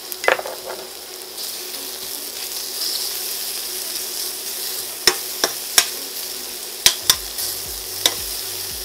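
Sliced red onions sizzling in hot peanut oil in a stainless steel pan on high heat, a steady frying hiss. Metal tongs stirring them clink sharply against the pan, once near the start and about six times from about five seconds in.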